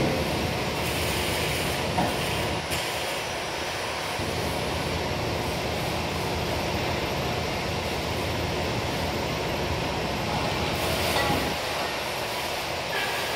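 Metal-cutting band saw running steadily through a clamped metal bar. A sharp metal clank comes at the start and another about two seconds in.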